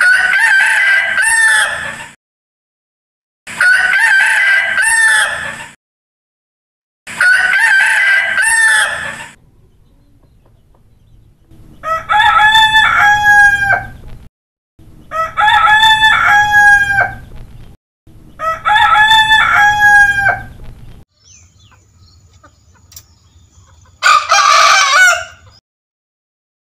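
Roosters crowing, seven long crows of about two seconds each: three from one bird, then three from another with a cleaner, more pitched voice, and one more near the end.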